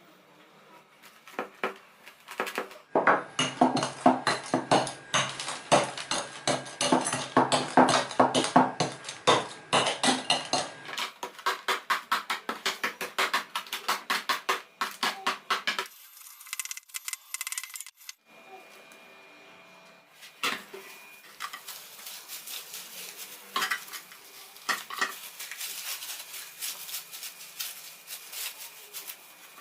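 A metal utensil scraping and clinking against a cooking pan in quick repeated strokes. It comes in several short cut-together stretches and is loudest in the first part.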